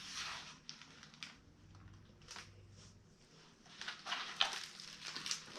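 Hardcover picture book being handled as a page is turned: short, scattered paper swishes and rustles, loudest about four seconds in.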